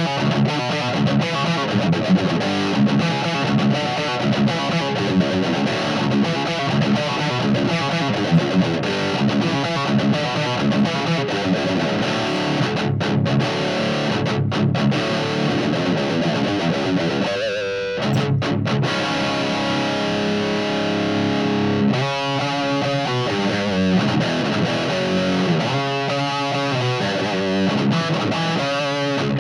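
Distorted electric guitar playing a riff through a guitar amp and speaker cabinet, with a few brief stops partway through and more sustained, ringing chords near the end.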